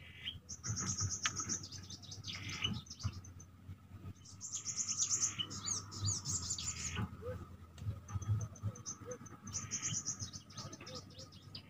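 Small songbird singing in three bouts of rapid, high-pitched chirping trills.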